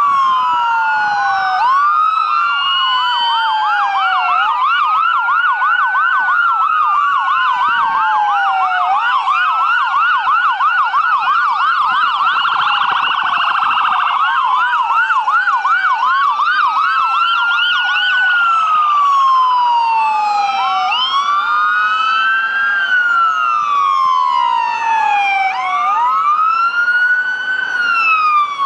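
Several police car sirens sounding at once as the cars pass, their slow rising-and-falling wails overlapping, with a stretch of fast yelping in the middle.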